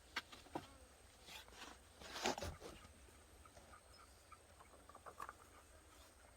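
Wood fire with mugwort on it, crackling faintly: a few sharp pops, and a short, louder burst of crackle about two seconds in.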